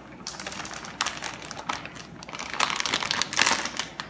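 Plastic bag crinkling and rustling as it is handled while flour is poured from it, in irregular crackles, loudest about two and a half to three and a half seconds in.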